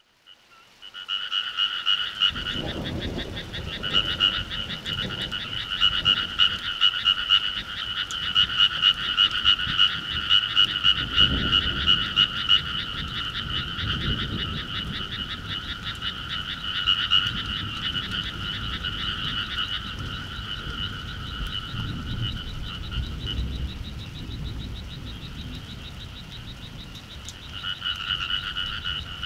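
A dense chorus of frogs croaking, many rapid pulsed calls overlapping into a continuous din. It starts about a second in, thins out for a few seconds near the end, then swells again. A low rumbling noise runs underneath.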